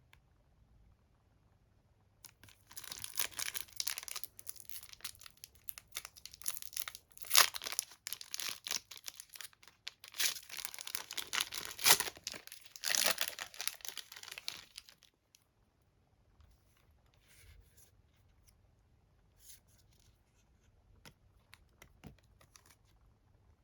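Pokémon TCG pack wrapper being torn open and crinkled: a dense run of tearing and crackling starting about two seconds in and lasting some twelve seconds, then only faint scattered rustles and clicks.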